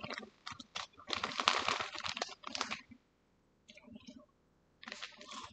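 Close crinkly rustling and crunching, as of a material being crumpled and handled, in a dense spell about a second in, then a brief pause and sparser short bursts.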